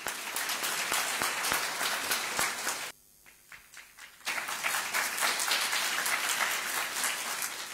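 Audience applauding, a dense patter of many hands clapping. The clapping drops away abruptly about three seconds in, starts again a little over a second later, and tapers off near the end.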